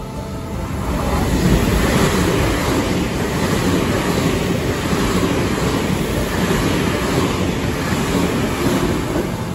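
A JR 383 series tilting limited-express electric train passing through the station at speed: a steady rush of wheels on rail and air. It swells about a second in, holds, and eases off near the end as the last cars go by.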